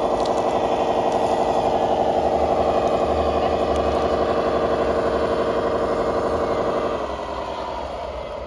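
Simulated wheel-loader diesel engine sound played through the onboard speaker of an RC model's ESP32 sound controller. It runs at high revs with a steady pulsing beat, then drops to lower revs about seven seconds in.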